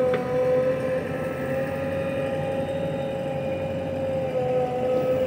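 JCB backhoe loader's diesel engine running under load while the backhoe arm digs and swings sand, with a steady whine that dips slightly in pitch twice over the low engine rumble. A short knock sounds just after the start.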